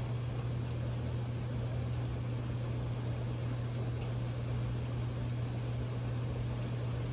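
Steady rain falling, an even hiss, over a constant low hum.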